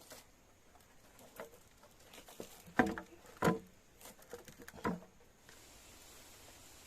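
A string of irregular knocks and clicks, the three loudest coming about a second apart in the middle, each ringing briefly. A steady hiss sets in near the end.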